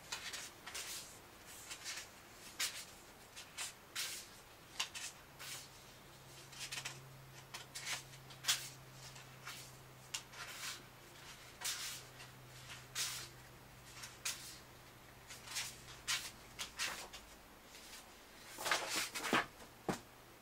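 Magazine pages being leafed through: irregular short paper rustles and flicks, a little busier near the end, with a faint low hum under the middle stretch.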